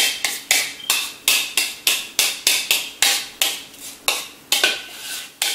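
A utensil scraping and knocking against a mixing bowl as cheesecake filling is spooned out, in quick repeated strokes of about three a second.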